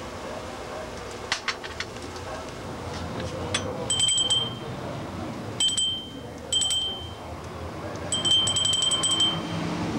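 A small porcelain souvenir hand bell shaken in four short bouts, its clapper rattling quickly inside and leaving one clear, high ringing tone; the last bout is the longest. A few light clicks come before the first ringing.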